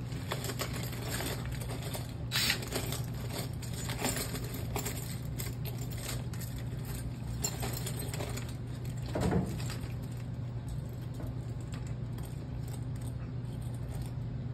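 Rummaging through loose screws and small metal hardware: scattered metallic clinks and rattles with a few louder knocks, over a steady low hum.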